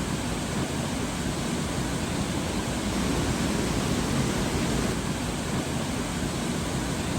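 Thi Lo Su Waterfall, a large multi-tiered waterfall, pouring down in a steady, even rush of falling water with a deep low rumble underneath.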